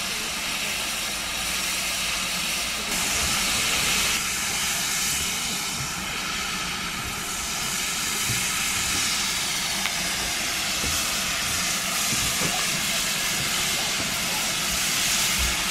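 Steam locomotive giving off a steady hiss of escaping steam, growing louder about three seconds in.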